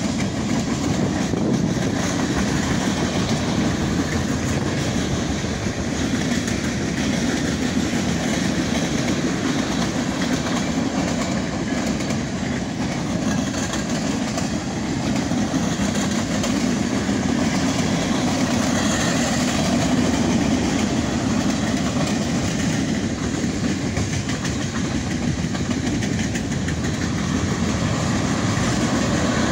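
Freight cars of a manifest freight train rolling past: the steady noise of steel wheels running on the rails, holding at an even level throughout.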